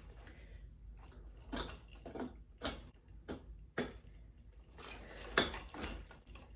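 Metal and plastic parts of a bassinet frame knocking and clattering while they are handled and pushed together: a run of short, sharp knocks, a few per second at most.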